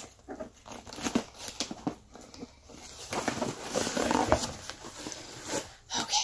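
Cardboard shipping box being pried open by hand: the lid and flaps scrape and tear free, with rustling and a few light knocks against the box.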